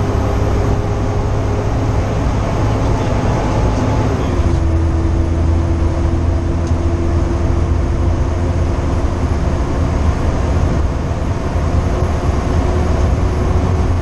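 Fire engine running at road speed, heard from inside the cab: a steady low engine rumble and road noise, with a steady whine that drops slightly in pitch about four seconds in.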